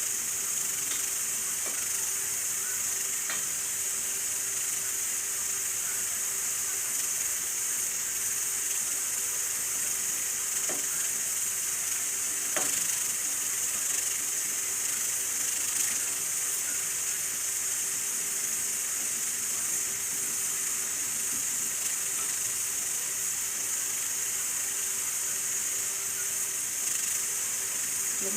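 Steady sizzling hiss of food cooking in a kadhai on the stove, with a few faint knocks.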